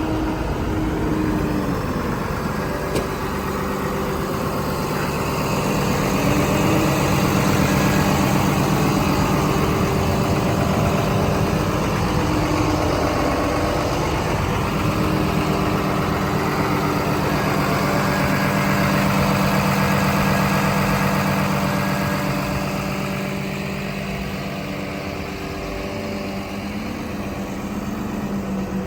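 Komatsu D61PXi-24 bulldozer's diesel engine running steadily, a little louder for a stretch in the middle and then easing off somewhat.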